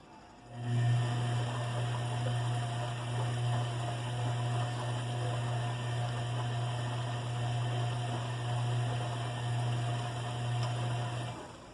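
Bosch washing machine running with a full load: a steady low hum starts about half a second in and cuts off shortly before the end.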